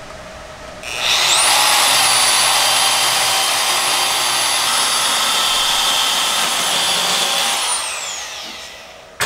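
Milwaukee portable band saw spinning up about a second in and cutting into stainless steel exhaust tubing with a loud, steady high whine, then winding down with a falling pitch near the end. The cut goes only partway through the tube, so the blade doesn't deform and deflect.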